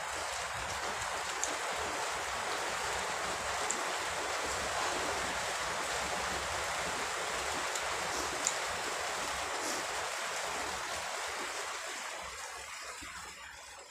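Rain falling: a steady hiss that dies away near the end, with a few faint clicks over it.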